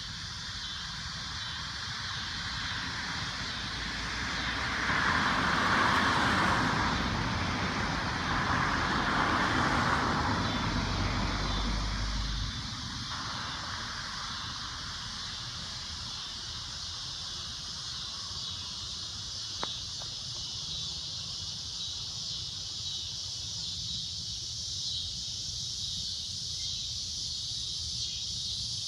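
Cicadas droning steadily in a high, shrill chorus. A louder rushing noise swells from about four seconds in and dies away around twelve seconds in.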